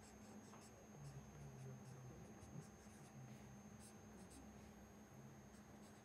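Faint scratching of a marker pen on paper, in short strokes, as a word and an arrow are written. A faint steady high whine runs underneath.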